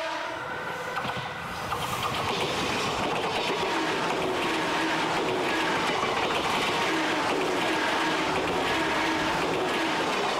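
A train passing close by at speed, with a steady rumble and rattle of wheels on the rails. A train horn note cuts off just at the start.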